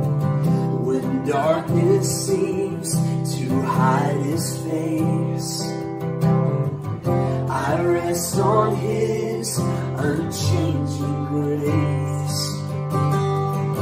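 Acoustic guitar strummed, with voices singing a slow worship song; the sung lines come and go over the steady guitar.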